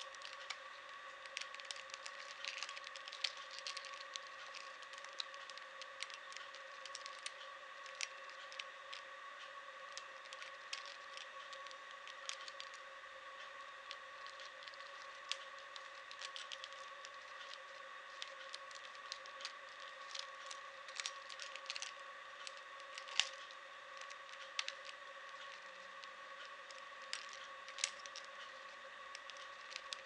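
Plastic Rubik's cube being turned by hand: irregular quick clicks and clacks as the layers are twisted, over a steady faint high hum.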